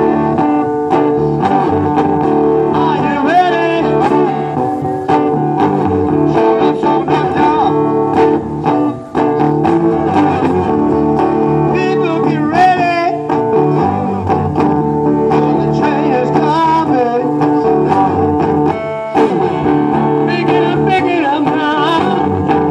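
Live blues song on acoustic guitar, strummed and picked, with a man singing along into a microphone.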